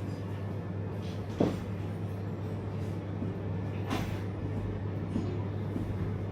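Pork being cut at a butcher's stall: two sharp knocks about two and a half seconds apart, the first the louder, over a steady low hum.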